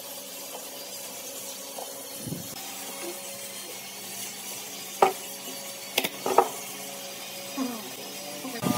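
Wooden staves knocking against each other and the round wooden base as they are worked into place by hand, with a few sharp knocks about five and six seconds in. A cordless drill starts up right at the end.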